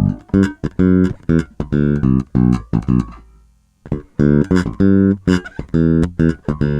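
Ibanez SR300 electric bass with PowerSpan Dual Coil humbucking pickups, played with the treble boosted on its onboard EQ: a run of short, clipped notes. The notes stop for about a second near the middle, then start again.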